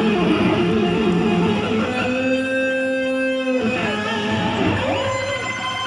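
Electric guitar played live with a rock band: a run of notes, then one long held note that stops suddenly, followed by a bent note sliding up and back down near the end.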